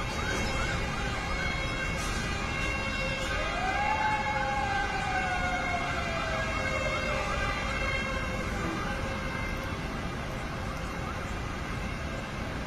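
Emergency vehicle sirens: a fast repeating yelp, about two to three cycles a second, joined about three seconds in by a slow wail that rises and then falls away over several seconds. Both fade out in the last few seconds over a steady rumble of city traffic.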